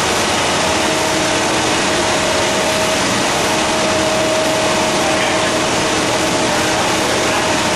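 Pilot-scale fourdrinier paper machine running at its dryer section: a loud, even mechanical hiss and hum with a steady mid-pitched whine.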